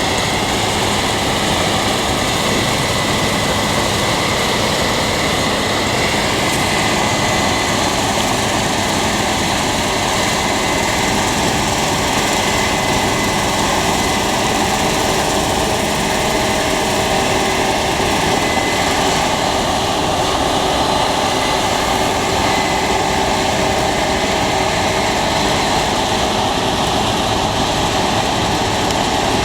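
Combine harvester running steadily through wheat, a constant machine drone with a few steady whining tones over it.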